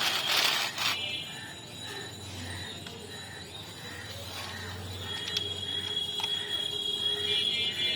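Toy SUV car's small gear mechanism whirring and clicking in a regular rhythm, after a brief loud rush of noise at the start.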